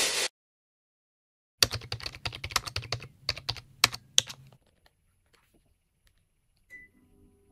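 A run of rapid sharp clicks, like keys or buttons being pressed, for about three seconds, then a single short high beep near the end: the beep of a Panasonic wall-mounted split air conditioner taking the remote control's signal.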